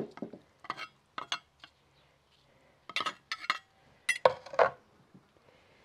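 A spoon tapping and scraping against a clay plate and a glass blender jar while cooked tomatoes, onion and garlic are pushed into the blender: an uneven string of short clinks and knocks, the loudest a little past four seconds in.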